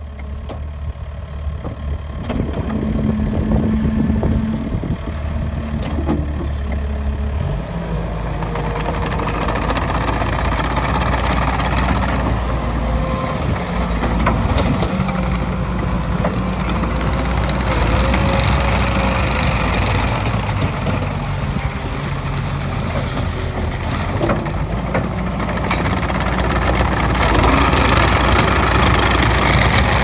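Kubota SVL75 compact track loader's diesel engine running steadily as the machine drives on its rubber tracks; the engine note shifts about seven seconds in.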